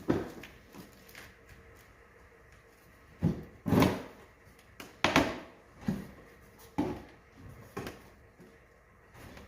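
Irregular knocks and thumps, about eight in nine seconds: an ATV seat's metal pan being handled while a blanket cover is pulled tight and tucked under its clips.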